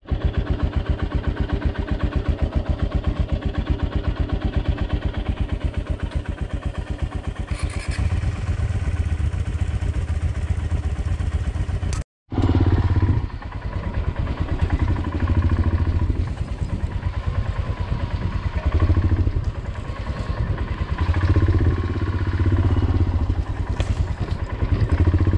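Royal Enfield Himalayan 411's single-cylinder engine running at low revs with an even, rapid beat as the bike is ridden slowly over a dirt track; the beat rises and falls with the throttle in the second half, after a brief cut about twelve seconds in.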